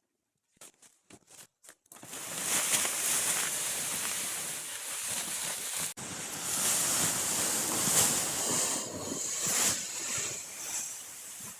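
Wind blowing in gusts, a loud rushing noise that starts about two seconds in after a few faint clicks, with a brief break near the middle.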